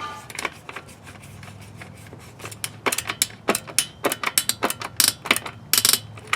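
Irregular sharp clicks and taps of hand tools and wires against the metal disconnect box, coming thick and fast in the second half, over a faint low hum.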